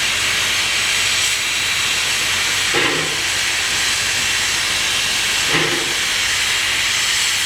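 Ten-wheeler steam locomotive No. 152 hissing steam steadily. Two brief low sounds come through about three seconds apart.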